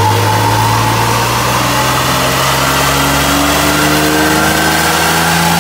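Car engine running hard under load on a rolling-road dyno, its revs climbing slowly and evenly through a power run.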